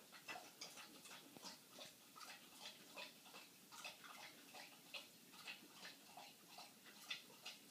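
Faint, uneven light ticking, about three or four clicks a second, from a dog moving about.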